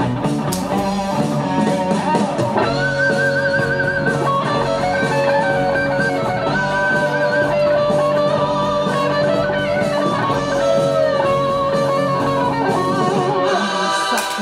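Guitar-led music with a blues-rock feel: a long held note under a wavering melody line.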